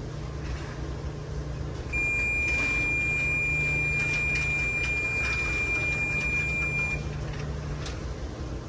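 Dexter T900 coin-operated washer's end-of-cycle signal: one long, steady, high beep lasting about five seconds, starting about two seconds in, over a low steady hum.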